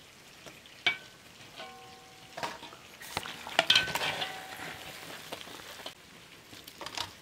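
Metal skimmer and ladle scraping and clinking against a large iron pot as cooked pieces are lifted out, with a few short ringing clinks of metal on metal. The busiest scraping comes in the middle.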